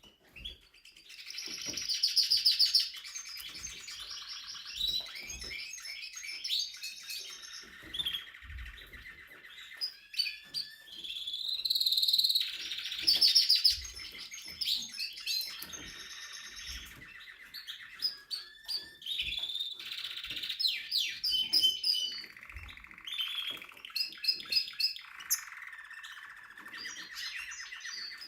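Timbrado canary singing a continuous song of rapid trills and rolls, changing to a new phrase every couple of seconds.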